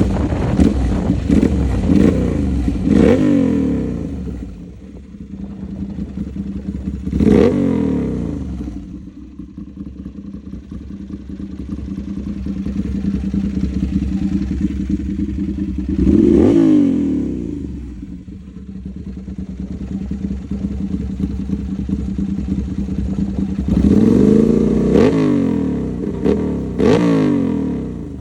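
Ducati Monster's L-twin engine idling with a steady rumble, revved in short throttle blips: a quick run of blips at the start, single revs about a third and two thirds of the way in, and another run of blips near the end.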